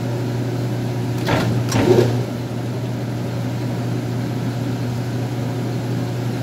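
Lathe running with a steady low hum while it turns a hydraulic hose into a reusable fitting. Two short knocks come between one and two seconds in, the second louder.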